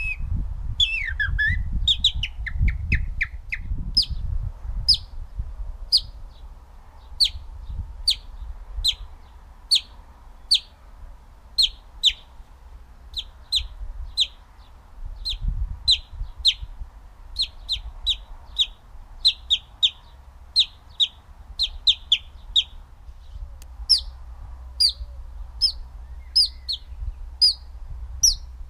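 Finger whistling imitating a house sparrow: short, sharp chirps repeated about once or twice a second. It opens with a few falling, warbled whistles.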